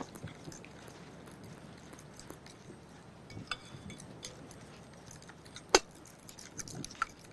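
Metal fork stirring a thin, runny batter in a glass bowl: faint scraping with light clinks of metal on glass, and one sharper clink about two-thirds of the way in.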